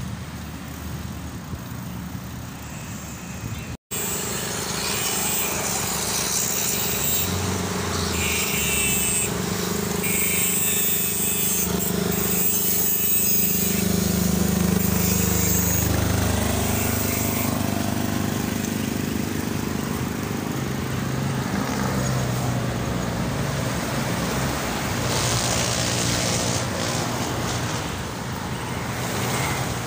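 Motorcycle engine running while riding along a road, its pitch rising and falling with the throttle. The sound cuts out for an instant about four seconds in.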